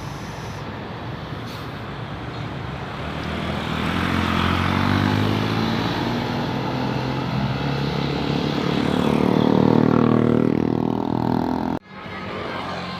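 Bus engine running as a bus draws near and passes, growing steadily louder to a peak about ten seconds in, then cutting off suddenly.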